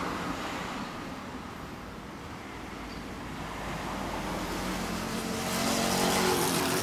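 A road vehicle passing on the street, its sound swelling to a peak near the end and then starting to fade, over steady traffic noise.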